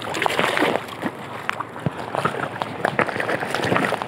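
Choppy water sloshing and splashing close by, with many irregular short sharp splashes.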